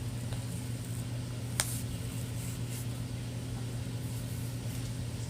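Steady low electrical hum, with one sharp click about a second and a half in.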